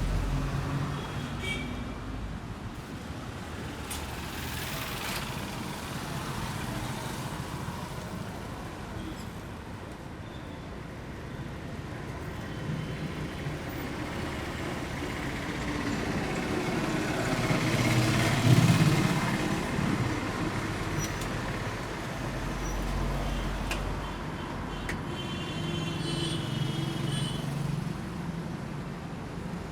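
Road traffic going by, with one vehicle passing loudest a little past halfway. A few short high tones sound near the end.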